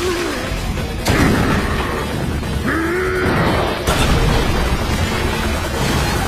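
Action soundtrack of an animated fight: dramatic music layered with heavy booming impacts, with sudden loud hits about a second in and again near four seconds in.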